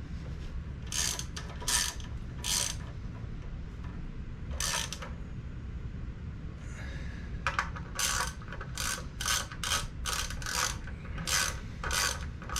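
Hand ratchet wrench clicking as the small bolts at the tops of the Crossfire Injection throttle bodies are run down: a few scattered strokes at first, then a steady run of about three clicks a second from about halfway through.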